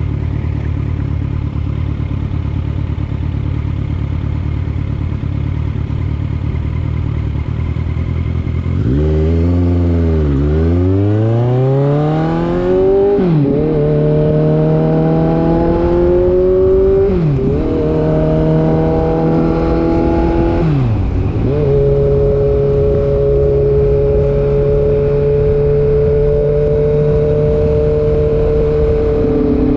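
Motorbike engine running low and steady, then pulling away with its pitch climbing in three rising runs. Each run breaks off in a sudden drop as the bike shifts up a gear, and the engine then settles to a steady cruising pitch.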